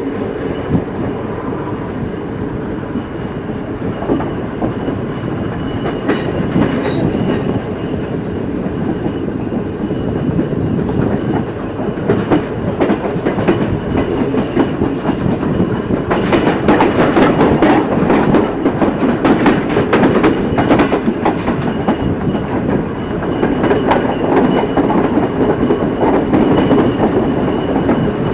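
Passenger train departing, its coaches rolling past with wheels clacking over rail joints and a steady rumble that grows louder as it gathers speed. A thick run of clacks comes about halfway through.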